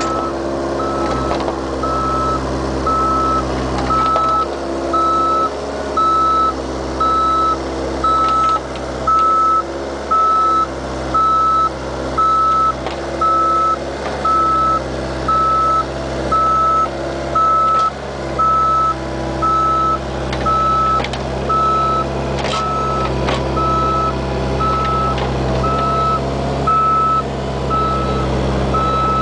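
Bobcat 430 ZHS mini excavator's travel alarm beeping steadily, about once a second, over its engine running as the machine tracks, with a few sharp knocks near the end.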